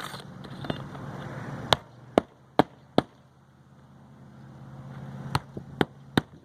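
Roofing hatchet driving nails through asphalt shingles: four sharp hammer strikes in quick succession, a pause, then three more. A low steady rumble sits under the strikes.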